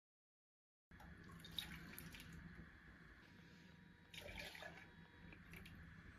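Faint splashes of running water, as at a sink, in two short spells, starting about a second in.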